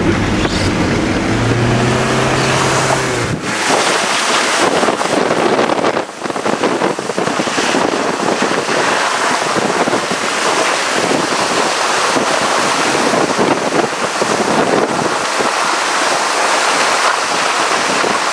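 A car engine is running, heard from inside the cabin. About three seconds in, a loud, steady rush of wind takes over, the sound of the car being driven with its windows down.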